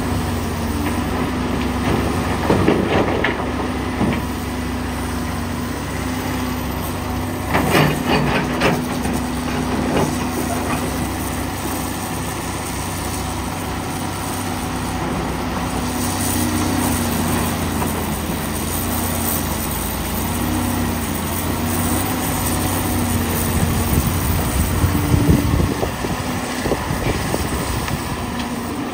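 Heavy diesel engines of a Komatsu PC450LC hydraulic excavator and a loaded-by dump truck running steadily, with several bursts of rock clattering and knocking as the excavator's bucket digs into broken stone, loudest about eight seconds in and again near the end.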